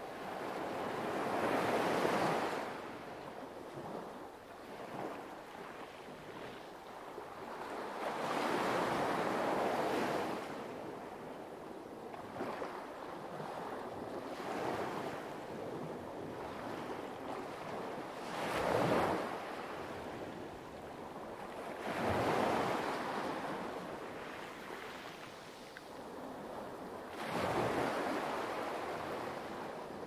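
Light waves washing onto a pebble beach. Each wave rises and fades every few seconds, about five in all, with the loudest near the start and about two-thirds of the way through.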